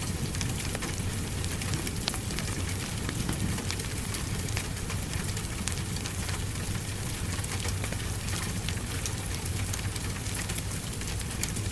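Wood fire crackling with scattered sharp pops over a steady hiss of rain, with a low steady rumble underneath.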